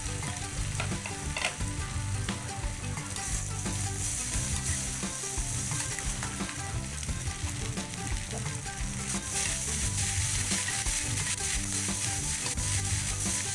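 Egg noodles and vegetables sizzling in a hot oiled aluminium wok while a metal spatula stirs and scrapes through them, with a few short clicks of the spatula against the pan. The sizzle is steady.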